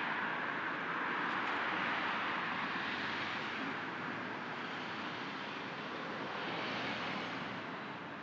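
Road traffic: cars passing one after another, their tyre noise swelling about two seconds in and again near the end.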